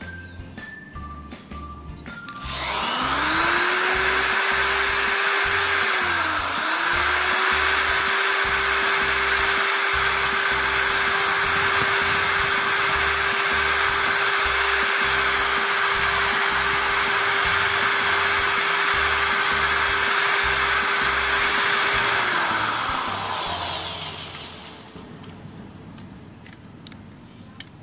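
Electric drill spinning a sandpaper-wrapped rod in a motorcycle connecting rod's small-end bore, polishing out scoring left by a seized piston pin so a new pin will fit. The motor spins up a couple of seconds in, dips briefly and picks up again, runs at a steady whine, then winds down near the end. Background music plays underneath.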